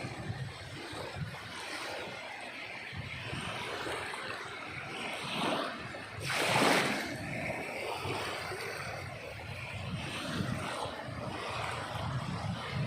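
Sea waves washing on a shore, a steady surf with one louder wave breaking about halfway through.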